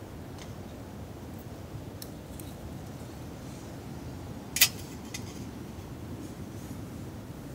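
A single short metal clink about halfway through as a thin metal windscreen is set down around a small camping stove on a perforated metal stove stand, with a couple of fainter ticks before it, over a steady low background noise.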